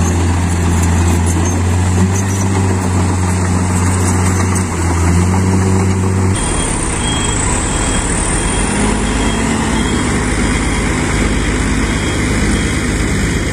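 Loaded Mitsubishi Fuso Canter dump truck's diesel engine running with a steady low hum. About six seconds in the sound changes abruptly to a rougher, deeper drone as the truck drives slowly over rough dirt.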